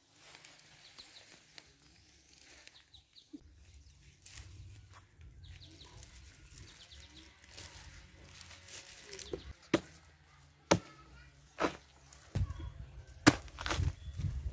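Machete chopping a banana stem into chunks on the ground: sharp single strikes about a second apart, starting about two-thirds of the way in. The first part is quiet.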